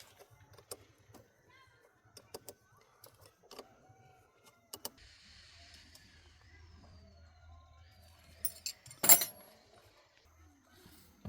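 Scattered light metallic clicks and clinks of tools and parts being handled, with one loud sharp clank about nine seconds in.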